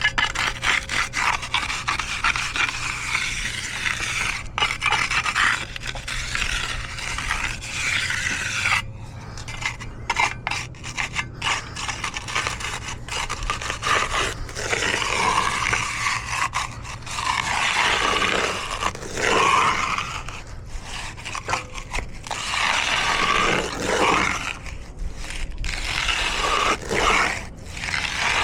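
Hand tools scraping and dragging through wet concrete in a long run of irregular rasping strokes.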